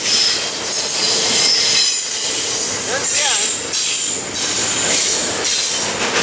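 Double-stack intermodal freight train rolling past close by: a loud, steady rumble and rattle of steel wheels on the rails, with high-pitched wheel squeal coming and going.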